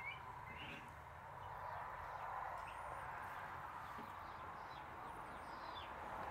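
Faint bird chirps, a few short high calls scattered through, over a steady background hiss of outdoor ambience.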